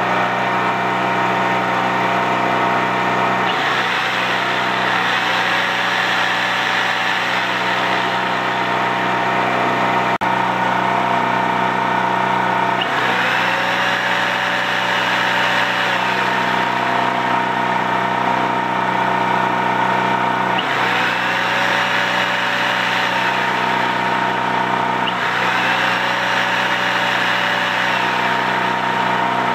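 Champion C46540 portable generator's single-cylinder engine running steadily under load while a Milwaukee jigsaw plugged into it runs at full speed four times for a few seconds each. The saw motor's whine rises as it starts and falls as it stops: a load test of the generator.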